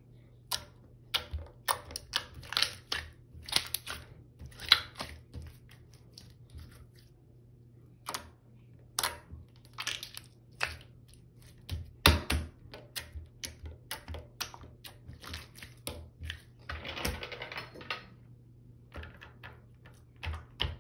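Sticky blue glitter goo from a burst stress-ball toy squelching and crackling as fingers squeeze, press and pull it. The sound comes as irregular sticky clicks, with a couple of longer crackling stretches about ten seconds in and again near the end.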